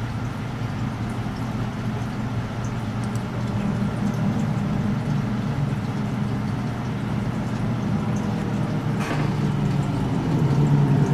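A steady low rumble that slowly grows a little louder.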